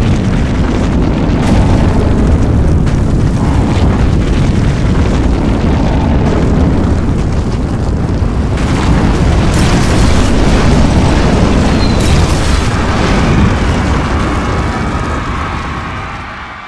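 Heavy, continuous low rumble of a strong earthquake, with scattered clatter on top, dying away near the end.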